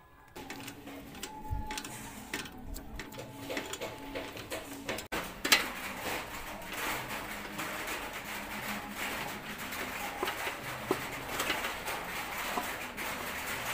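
Hand tools (an open-end wrench and a T-handle socket wrench) clicking and clinking irregularly against chrome bicycle fork and frame parts as bolts are fitted and tightened.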